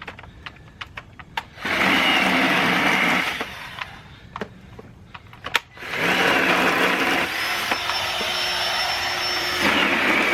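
Cordless electric JawSaw chainsaw whirring in two runs as it cuts through sticks, about a second and a half long and then about four seconds long, its pitch dropping partway through the second run. Sharp clicks and knocks of sticks and handling fall in the pauses between.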